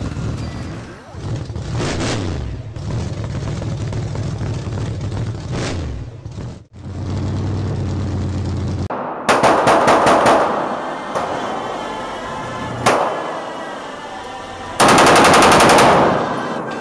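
Rapid-fire gunshots in two quick strings, the first about nine seconds in and the second about fifteen seconds in, with a single shot between them. Before the shooting there is a steady low droning sound.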